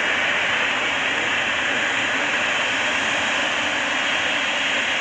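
Steady jet engine noise from a Boeing 777-300ER's GE90 turbofans: an even hiss with no change in level.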